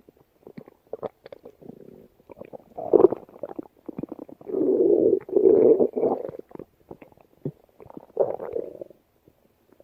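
A woman's stomach growling and gurgling: a run of short, clicking gurgles, then a longer rumble in two swells about halfway through, and another gurgle near the end.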